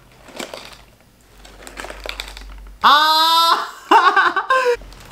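Thick card pages of a pop-up book rustling and flapping as they are turned, then a man's loud, delighted exclamation rising in pitch about three seconds in, followed by laughter.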